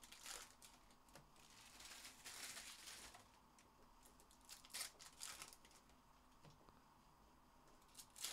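Faint crinkling and rustling of trading card pack wrappers and cards being handled, with a longer rustle about two seconds in and a few short sharp flicks around five seconds in.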